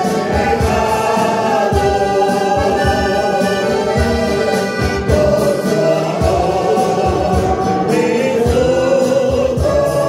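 Small men's church choir singing a Spanish hymn, accompanied by an accordion and a strummed acoustic guitar.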